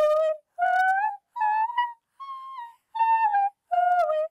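A woman's vocal warm-up: short sung notes with brief gaps between them, climbing step by step to a high note about halfway through and then stepping back down the scale.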